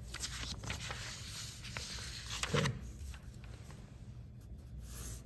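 A sheet of drawing paper being slid and turned on a drawing board, rustling and scraping, with one soft thump about two and a half seconds in.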